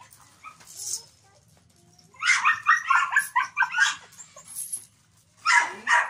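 Dog barking and yelping in a quick run of sharp calls about two seconds in, with another short burst near the end.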